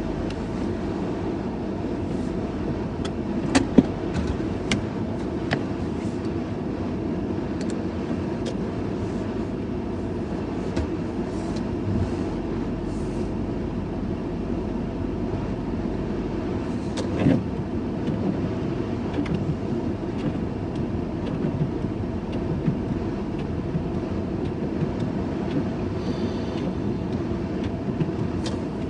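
Steady running noise of a motor vehicle, an even low rumble with scattered light clicks and taps, the loudest about 4 seconds in and again about 17 seconds in.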